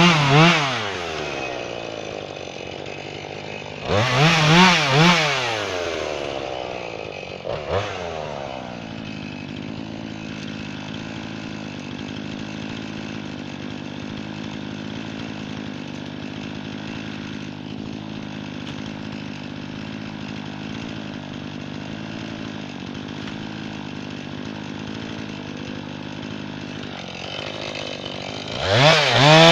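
Jonsered two-stroke chainsaw revved up and let back down twice, with a short blip, then idling steadily for about twenty seconds before revving up again near the end.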